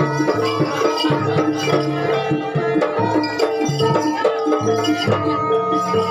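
Kuda lumping music: a gamelan-style ensemble of drums and pitched metal percussion playing a steady, repeating rhythm, with low drum strokes under ringing tuned notes.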